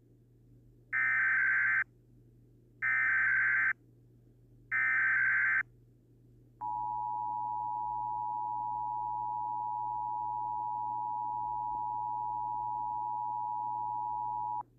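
Emergency Alert System alert tones: three short bursts of SAME digital data, about a second each and two seconds apart, carrying the coded alert header. Then the steady two-tone EAS attention signal sounds for about eight seconds and cuts off suddenly.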